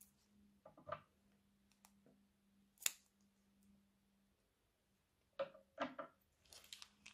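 A sharp snip about three seconds in, like scissors cutting a plastic piping bag, then soft squelches and crackles from about five and a half seconds in as thick slime is squeezed out of the piping bag onto slime in a bowl.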